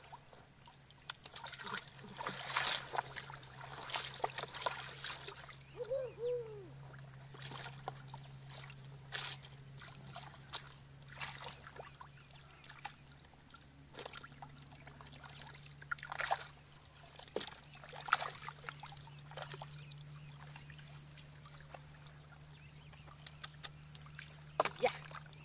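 Hands and feet splashing and sloshing in shallow muddy water among grass, in irregular bursts, while feeling for fish by hand.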